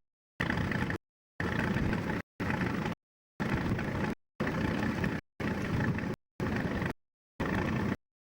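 Tractor engine and field noise in short chopped bursts, each under a second, separated by gaps of dead silence: about eight cut-up snatches of running engine.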